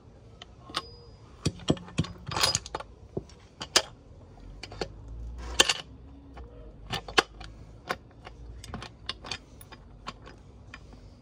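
Irregular metallic clicks and clinks of Suzuki RM85 gearbox gears and shafts being handled and fitted into the engine's crankcase half, some in quick clusters.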